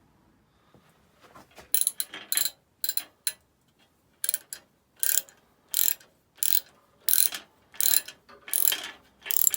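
Ratchet wrench tightening a nut or set screw on a bicycle, with a short clicking rasp on each back-swing. The strokes start about a second and a half in and repeat about one and a half times a second.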